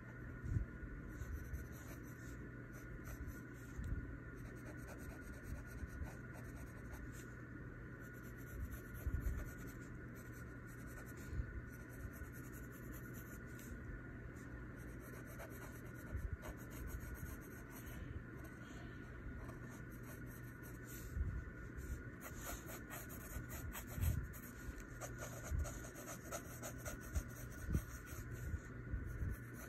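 Pencil scratching on paper in short, irregular sketching strokes, with a few soft bumps and a faint steady hum underneath.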